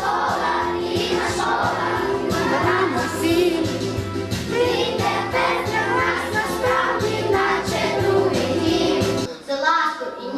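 A song with voices singing over a steady bass beat. It cuts off about nine seconds in, and a voice starts speaking near the end.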